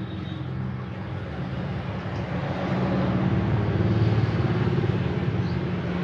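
Low, steady rumbling noise like road traffic, swelling louder about halfway through and easing off again near the end.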